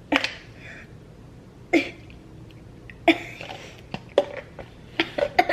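A girl coughing in short bursts a second or so apart, coming quicker near the end, as she reacts to eating a moldy-cheese-flavoured Bean Boozled jelly bean.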